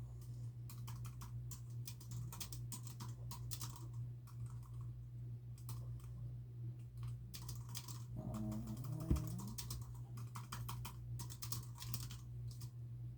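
Typing on a computer keyboard in quick runs of keystrokes with short pauses, over a steady low hum. About eight seconds in, a short low pitched sound ends in a single thump, the loudest moment.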